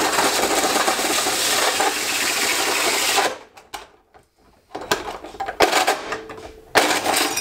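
Power drill running a hole saw up through the car's sheet-metal floor pan, with the bit cutting for about three seconds before stopping. Short spurts of drilling follow near the end as the saw breaks through.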